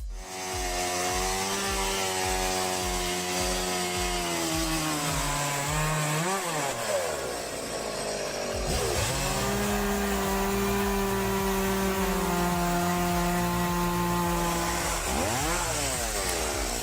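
Two-stroke chainsaw running at high revs through wood, its steady whine sagging under load twice, each time followed by a quick drop and rise in revs, with a short lull between the two cuts.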